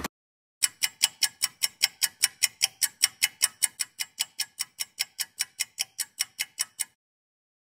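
A rapid, even ticking sound effect of about four sharp ticks a second. It starts about half a second in, gets a little quieter partway through, and stops near the end.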